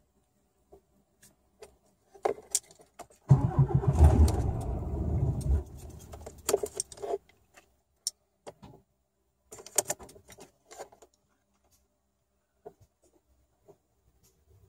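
Scania R450 truck's diesel engine cranked by the starter for about two seconds, then cutting out without the engine catching, a start problem. Clicks and rattles of the ignition key come before and after.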